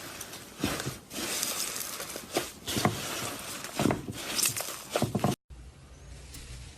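Slime being squeezed and pressed by hand, making a dense crunching, crackling sound like walking on snow. It cuts off abruptly about five seconds in, and a quieter stretch follows.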